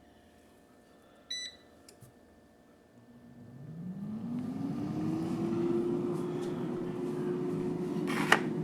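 Air fryer beeping once as it is set, then its fan starting up: a hum that rises in pitch over about a second and then runs steady. A sharp click near the end.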